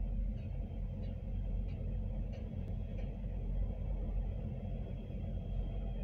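Heavy diesel truck engines idling, a steady low rumble heard from inside a truck cab, while a cabover tractor-trailer backs up slowly.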